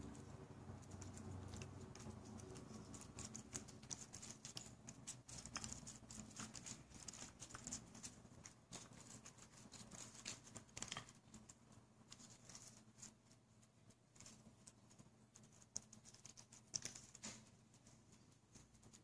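A cat chewing freeze-dried cat food: faint, irregular crunching clicks that thin out after about halfway, with a few louder ones near the end.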